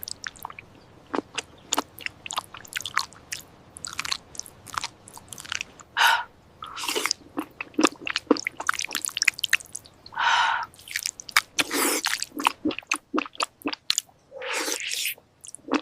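Close-up chewing and biting of food: an irregular run of wet clicks, crunches and squishes, with a few longer, louder bites.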